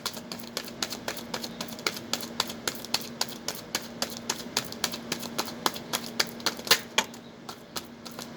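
A tarot deck being shuffled by hand, with quick irregular card snaps and clicks several times a second, over a steady low hum.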